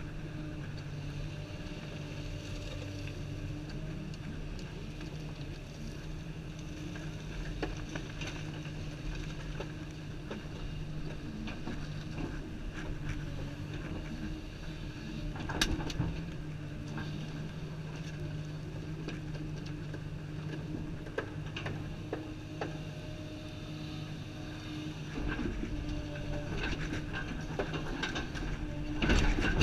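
Komatsu 350 excavator's diesel engine running at a steady pitch, heard from inside the cab while the machine digs. Scattered knocks and clicks ride over it, with a sharp one about halfway through and a louder clunk near the end.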